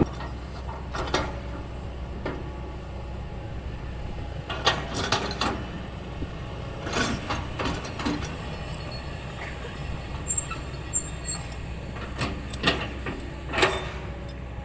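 Kobelco SK200 hydraulic excavator's diesel engine running steadily, with irregular metal clanks and knocks from the machine as it works.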